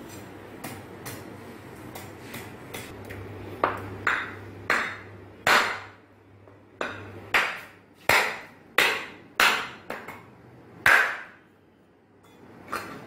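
A heavy cleaver chopping through beef trotter bones, cutting them into pieces: about a dozen sharp blows with a brief metallic ring, starting a few seconds in, after lighter tapping and scraping.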